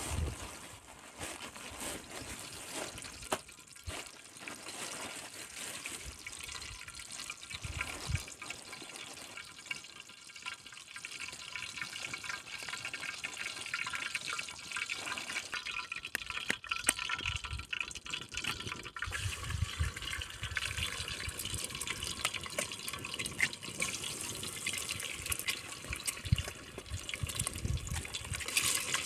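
Water running and splashing, with small drips and trickles, a little louder in the second half.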